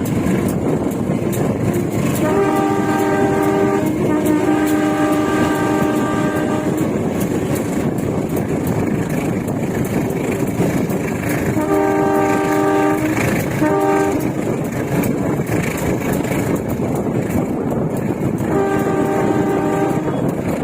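Train locomotive horn sounding a series of warning blasts: two long blasts, then a long and a short one, then another long one, for level crossings ahead. Under it runs the steady rumble and clatter of the train's wheels on the rails, heard from inside a carriage.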